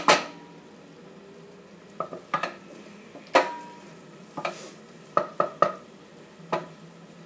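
Wooden spoon stirring rice in a metal pot, knocking against the pot about eight times at uneven intervals, one knock leaving a brief ring, over a low steady sizzle of rice cooking in white wine.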